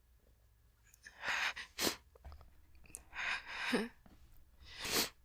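A woman stifling sneezes from a dust allergy: twice, a sharp catching breath is followed by a short, held-back sneeze.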